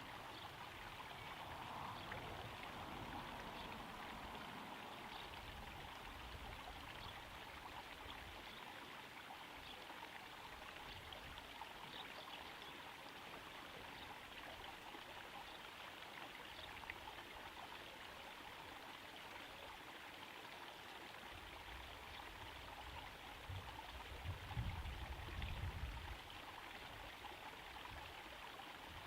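Small garden pond waterfall trickling steadily into a pond, a faint even splashing hiss. A brief low rumble rises over it about three-quarters of the way through.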